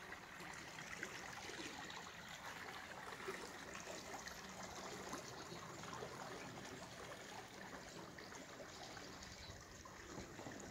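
Small waves lapping and trickling against a dock, stirred by the wake of a passing motorized kayak.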